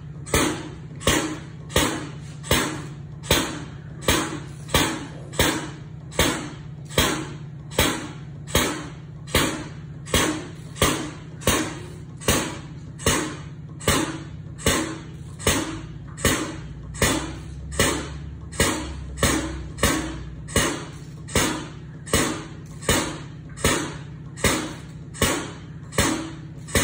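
Engine oil priming machine pumping oil into the engine: a steady hum with a regular rhythmic whoosh about twice a second.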